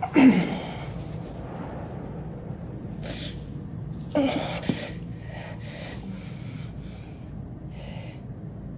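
A woman crying out in pain twice, loudly, the first cry just after the start falling in pitch and the second about four seconds in, with short gasping breaths between and after. A low steady rumble runs underneath.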